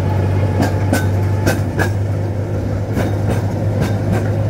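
A ride-on train rolling slowly along its track, heard from aboard, with a steady low drone. Its wheels click over the rail joints in pairs, a clickety-clack about four times.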